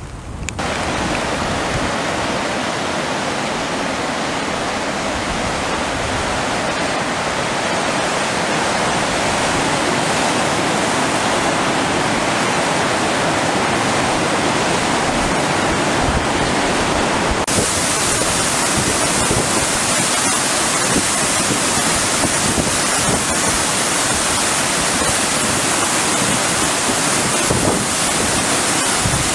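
Creek in flood after a major rainstorm, turbulent muddy water rushing loudly through rapids. It comes in suddenly about half a second in and turns hissier about two-thirds of the way through.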